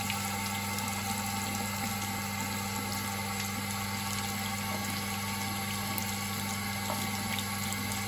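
Water running steadily from a bathroom tap, splashing over a vacuum-cleaner filter as it is rubbed under the stream and into the sink below. A steady low hum sits underneath.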